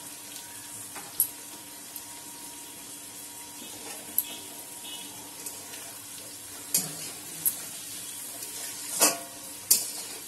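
Spiced chicken chaap gravy boiling and sizzling in a kadai, with several sharp knocks as fried chicken pieces go into the pan.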